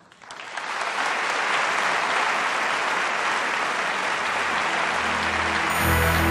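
Studio audience applauding, swelling up over the first second and then holding steady. Near the end, music with a low bass line comes in underneath.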